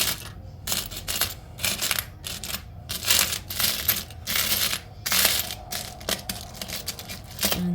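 Small charms clinking and rattling against each other as they are sifted and picked through by hand: a run of irregular sharp clicks.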